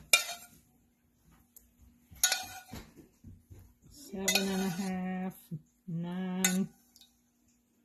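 A stainless saucepan and spoon clink and scrape against a ceramic bowl as cooked black beans are poured in, with sharp clinks about two seconds in and again near the end. A little after the middle come two steady, buzzy tones of about a second each.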